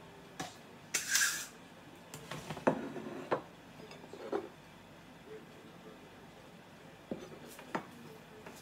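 Ceramic bowls and a spoon being handled and set down on a kitchen counter: a scattering of short knocks and clinks, with a brief scraping rustle about a second in.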